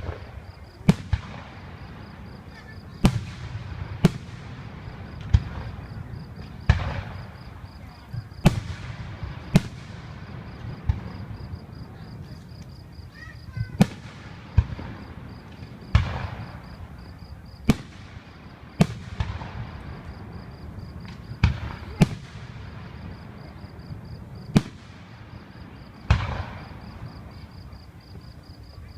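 Aerial fireworks bursting overhead: a string of sharp booms, one about every second or two, each trailing off briefly.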